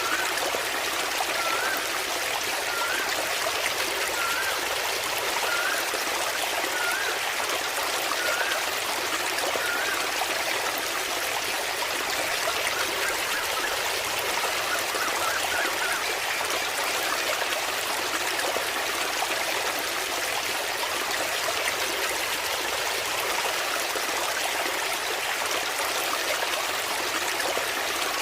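Waterfall: a steady rush of falling and splashing water. During the first third, a short wavy whistled note repeats about every second and a half, then fades out.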